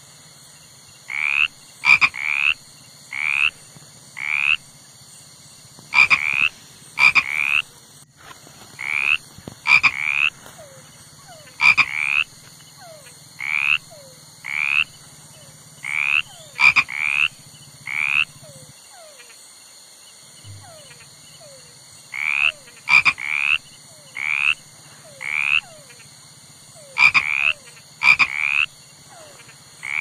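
A frog calling: short croaks repeated every second or so, singly or in quick runs of two to four, with a pause of a few seconds about two-thirds of the way in.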